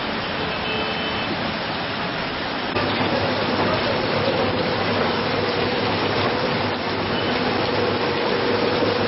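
Steady rushing noise of rain and floodwater in a street. About three seconds in it gets louder, with water gushing up out of the drains under the paving, forced back up by the flood.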